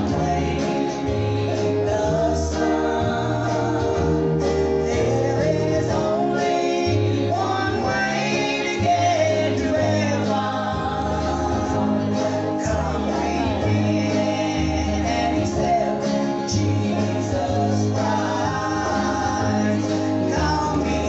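Gospel singing group performing a song live, voices carrying the melody over instrumental backing.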